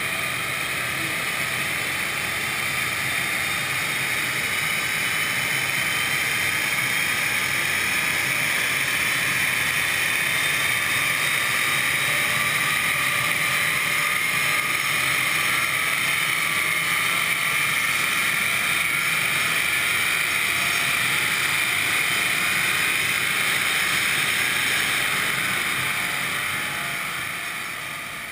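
BMW 330xd's straight-six turbodiesel, its particulate filter removed, running under load on a chassis dynamometer, together with the spinning rollers and tyres, as a steady loud noise. The noise eases off over the last couple of seconds.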